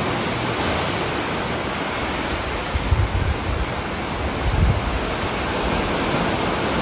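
Steady rush of sea surf breaking against the cliffs below, mixed with wind, with two short gusts buffeting the microphone about three and four and a half seconds in.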